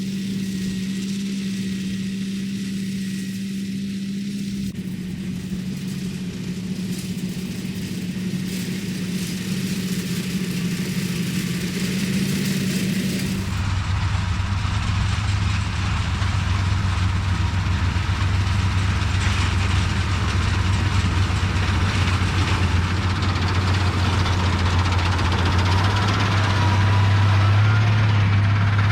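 Self-propelled swather with a draper head, its engine running steadily while cutting. About halfway through the engine note drops deeper and gets louder, and it grows a little louder still near the end.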